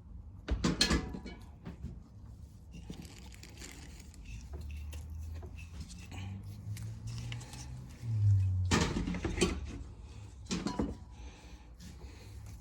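Aerosol carburetor cleaner sprayed in three short hissing bursts, about a second in and twice more near the end, blowing out the carburetor's passages and jets. Light clinks of small metal carburetor parts being handled between the sprays.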